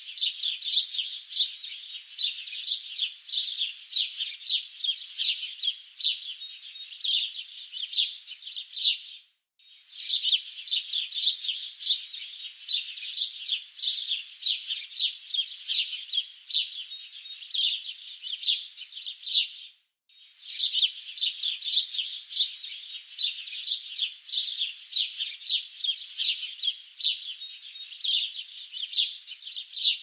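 Small birds chirping and twittering in a rapid, busy stream of high notes. It is a roughly ten-second recording that plays three times over, with a brief silent break between each pass.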